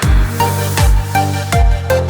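Electronic background music with a steady kick-drum beat and synth notes.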